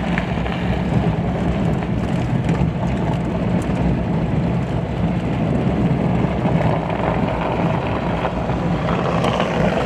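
Truck engine running steadily under load with tyres churning through deep snow while driving off-road, a constant low rumble and hiss.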